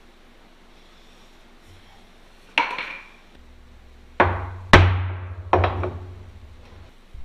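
Hammer striking a snug-fitting steel frame-insert channel four times, driving it into a truck's frame rail. Each blow rings briefly; the third is the loudest.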